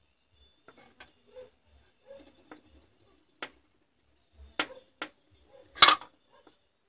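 Handling noise of cylindrical battery cells and their connecting strips: scattered light clicks and knocks, with a sharper knock near the end.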